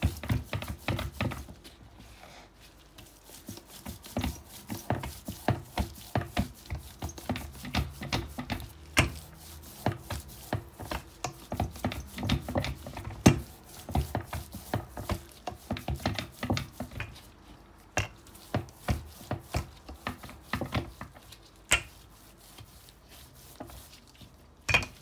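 Wooden rolling pin working biscuit dough on a wooden board: a low rolling rumble broken by many irregular knocks and taps of wood on wood. The sharpest knock comes about halfway through.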